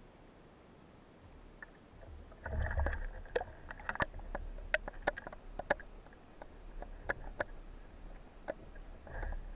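Underwater handling noise of a speargun and a speared pike: a run of sharp clicks and knocks over a low water rumble, with brief rushes of water about two and a half seconds in and near the end.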